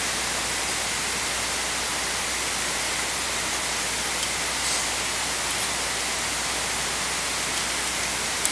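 Steady hiss of the recording's background noise, with a faint low hum and a faint high tone running under it, and a couple of faint clicks.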